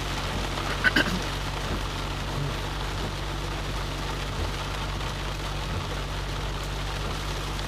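Inside a Ford Mustang in the rain: a steady hiss from the defroster fan blowing and rain on the car, with the engine's low hum underneath. A short click about a second in.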